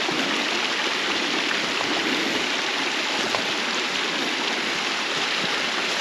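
Small mountain stream rushing steadily over rocks and little cascades.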